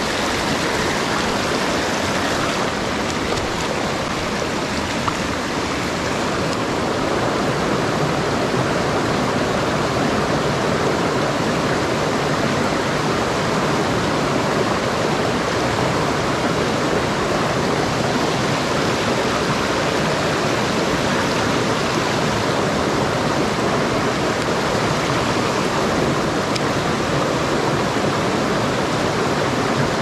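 Mountain stream water rushing, a steady even noise that does not let up.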